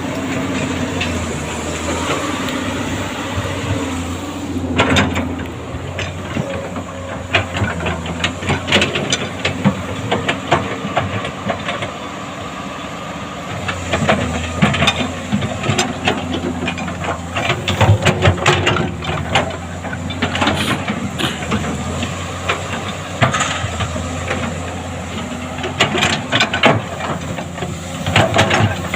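Komatsu PC200 hydraulic excavator's diesel engine running steadily with a hiss, its note shifting a few times, while frequent clanks and knocks come from the working machine.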